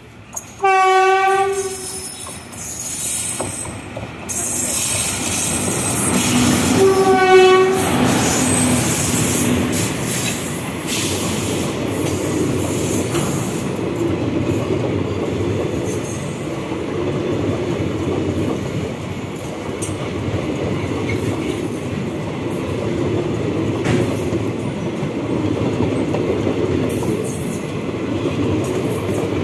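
Electric locomotive's horn sounding two short blasts about six seconds apart on a departing express train. Then the steady wheel-and-rail clatter of its passenger coaches rolling past close by.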